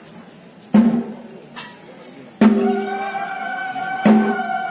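Slow drum strokes, about one every second and a half, each ringing briefly at a low pitch. About halfway through, a long held note from a wind instrument or voice joins in and carries past the end.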